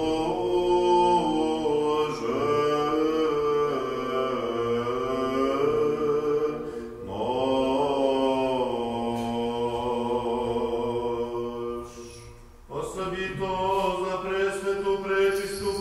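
Byzantine liturgical chant sung by male voices: a melismatic line moving over a lower sustained voice, with a short break about twelve seconds in before the singing resumes.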